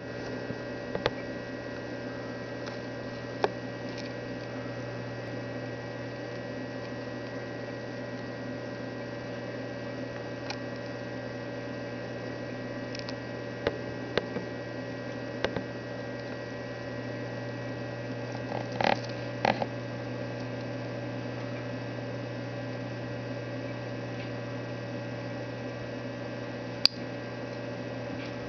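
Steady hum of an 8-gallon Biocube aquarium's pump, with about ten sharp clicks at irregular intervals, a quick pair in the middle and the loudest near the end: a purple spot mantis shrimp (Gonodactylus smithii) striking the shell of a black margarita snail.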